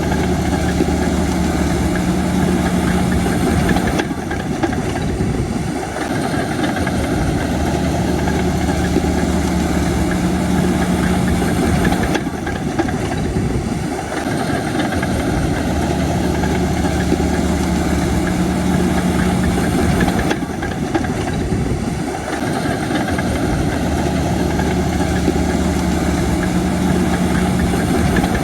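Bulldozer's diesel engine running, its note going steady and strong for a few seconds, then easing, in a regular cycle about every eight seconds.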